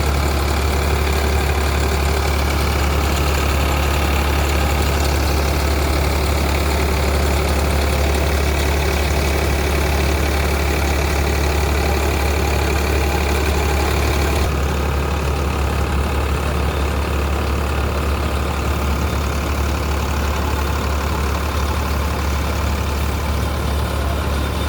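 Solis 5515 tractor's diesel engine running steadily while driving a baler, a strong low hum with machinery noise over it. The sound turns slightly duller a little past halfway through.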